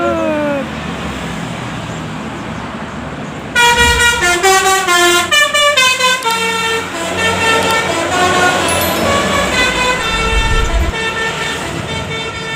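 Bus engine running, then about three and a half seconds in a Basuri V3 'telolet' multi-tone musical air horn starts playing a tune of short, quickly changing notes, loud and continuing to the end.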